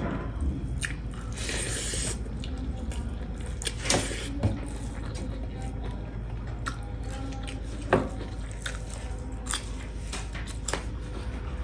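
Close-miked mukbang eating sounds: a person chewing and smacking while eating rice and curry by hand, with a brief rustle of fingers mixing rice in a brass plate and scattered small clicks.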